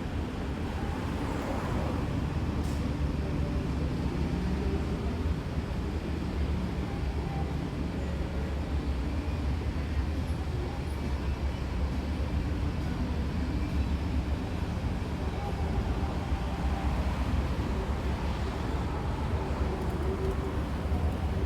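Steady city street ambience at night, dominated by a continuous low rumble of road traffic.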